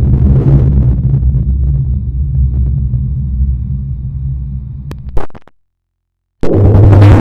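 Fan-made giant-monster sound effect: a loud, low rumble that fades over about five seconds and ends in a brief crackle. After about a second of silence, another loud, low droning sound starts abruptly.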